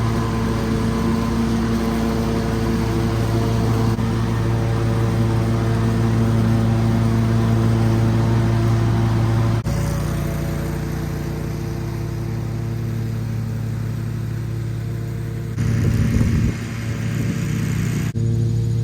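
Riding lawn mower engine running steadily while mowing; its note shifts slightly about halfway through, and there is a brief louder noise near the end.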